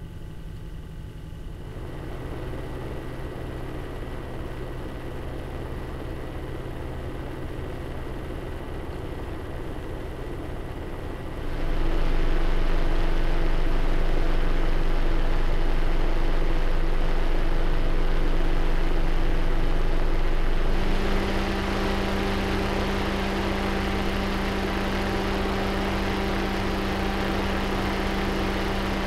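CPU cooler fans running, heard up close as a steady whoosh of air with a hum. The sound changes in steps: a little louder about two seconds in, clearly louder about twelve seconds in, and about twenty-one seconds in a touch quieter with a higher-pitched hum, as a different fan setting or cooler takes over.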